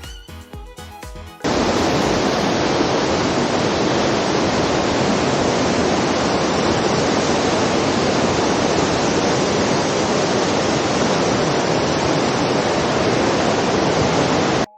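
Waterfall: a loud, steady rush of falling water that cuts in suddenly about a second and a half in and cuts off just before the end, with background music before it.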